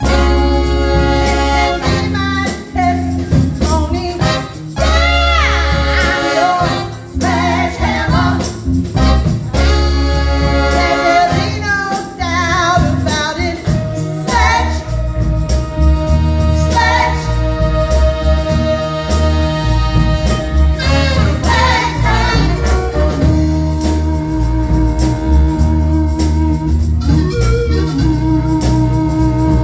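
Band music with singing over a steady bass line and held keyboard-like tones.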